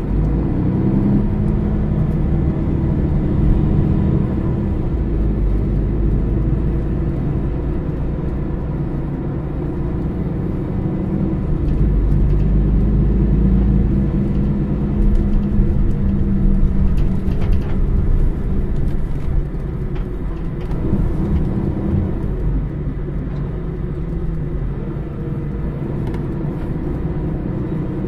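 Mercedes-Benz O550 Integro bus's diesel engine running as the bus drives: a steady low rumble with the engine note rising and falling.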